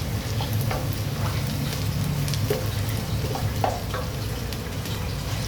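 Food frying in a pan, with scattered small crackles and ticks over a steady low hum.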